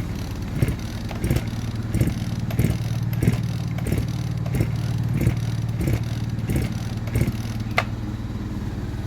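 Chinese MS360-clone chainsaw being pull-started over and over, about eleven quick recoil-starter pulls with no sign of the engine firing, then a sharp click near the end. A steady low hum runs underneath.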